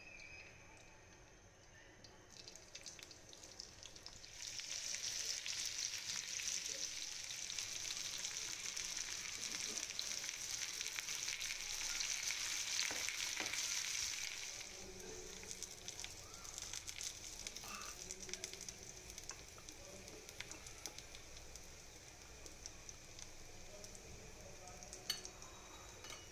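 Bitter gourd slices sizzling as they fry in hot oil in a pan, with a spoon stirring them now and then. The sizzle builds over the first few seconds, is loudest for about ten seconds, then settles to a softer sizzle. A sharp click comes near the end.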